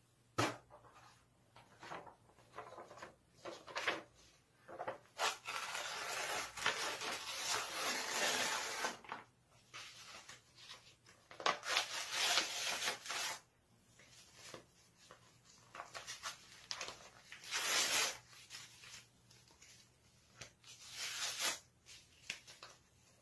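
A sheet of paper rustling and crumpling as it is handled, rubbed against a face and folded, in irregular scratchy spells with several louder stretches of one to three seconds.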